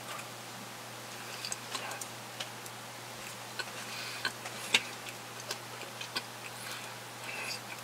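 Closed-mouth chewing of a bread-and-sausage sandwich, heard as irregular wet clicks and smacks, the loudest a little before five seconds in, over a steady low hum.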